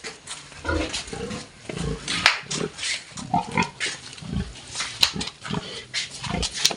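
Pigs making short, irregular grunting sounds, many in quick succession, with a few sharper, higher sounds among them.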